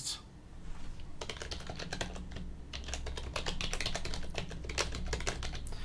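Typing on a computer keyboard: a quick, uneven run of key clicks starting about a second in, over a low steady hum.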